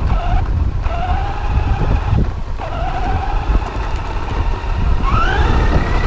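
Radio-controlled car's motor whining, cutting out briefly twice and rising in pitch about five seconds in as it speeds up, over a steady rumble of the car bouncing over rough ground.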